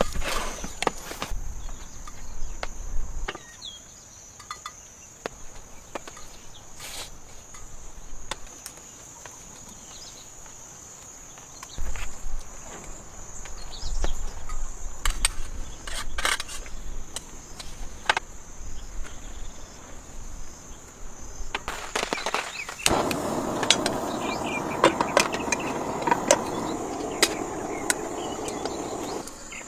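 Steady high insect chirring, with scattered sharp clicks and knocks and some low rumbling. About 23 seconds in, a louder rushing, crackling noise joins in and runs until near the end.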